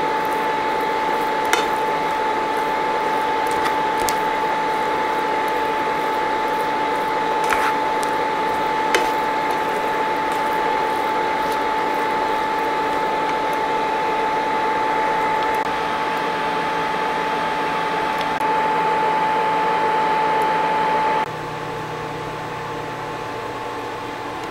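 Induction cooktop giving a steady, high-pitched whine under a pan of chicken and black beans, with a silicone spatula scraping and knocking a few times on the pan as the food is stirred. About three-quarters of the way through the whine cuts off suddenly, leaving a quieter, lower hum.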